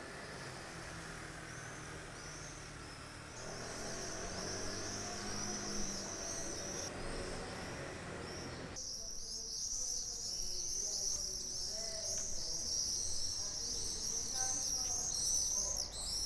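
A flock of small birds chirping and twittering together, a dense high chatter that gets louder and busier about nine seconds in, over a faint low background hum.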